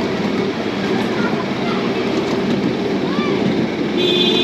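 Small museum toy train running steadily along its track, a continuous rumble with light wheel clicks. A steady high tone sets in near the end.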